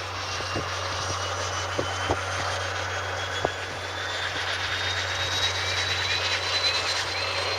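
Floatplane's propeller engine droning, growing steadily louder and rising slowly in pitch. A few sharp clicks come in the first few seconds.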